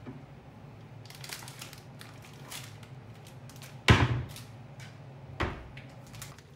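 Rummaging in a wooden kitchen wall cabinet: light rustles and clicks as a plastic-wrapped packet of linguine is taken out. Then two knocks as the cabinet doors shut, a loud one about four seconds in and a lighter one about a second and a half later, over a low steady hum.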